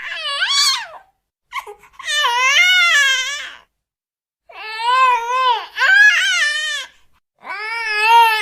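Giant panda cub cooing: a series of about five high, wavering calls, each around a second long, with short pauses between them.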